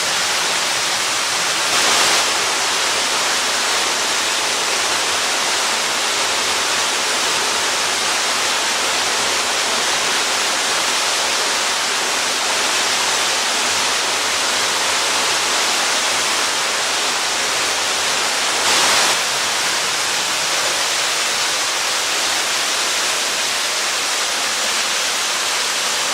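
Waterfall pouring close by, a steady loud roar of falling water, briefly louder twice, once about two seconds in and again near the end.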